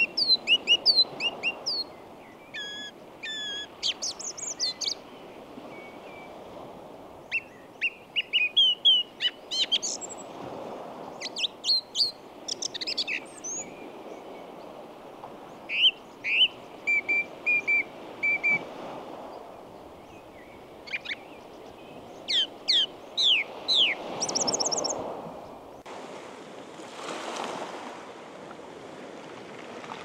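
Bird song in quick, varied phrases of chirps, trills and short whistles, over the soft wash of small waves lapping on a pebble beach that swells and fades every few seconds. The singing stops about 25 seconds in, and a louder wave washes over the stones soon after.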